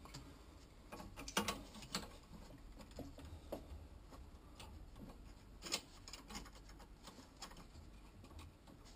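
Faint, scattered clicks and taps of a copper pipe and a compression elbow being handled, with the nut turned on by hand. The sharpest clicks come about a second and a half in and again near six seconds in.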